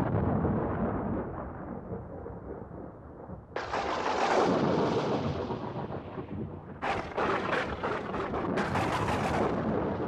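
Thunder: a rumble dying away, then a sudden clap about three and a half seconds in that rolls off slowly. Near the end come several crackling peals close together.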